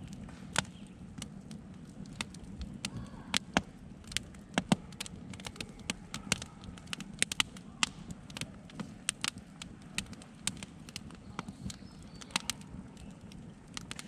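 Wood campfire burning in a steel fire ring, crackling with irregular sharp pops, several a second, over a low steady rumble.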